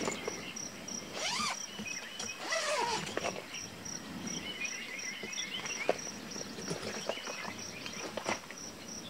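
Insects chirping in a steady, high-pitched pulse, about three times a second. A few calls that rise and fall in pitch come in over them early on.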